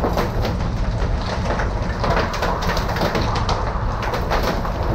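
Wind-driven hail storm: heavy wind rumble on the microphone with a dense, irregular scatter of sharp clicks from hailstones striking.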